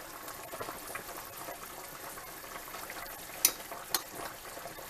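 Chicken broth bubbling in a pot on the stove, a steady soft crackle, with two light clicks about three and a half and four seconds in.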